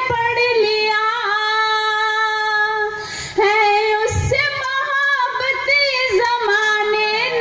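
A woman singing a line of a Hindi poem, holding long drawn-out notes that waver in pitch, with a brief pause for breath about three seconds in.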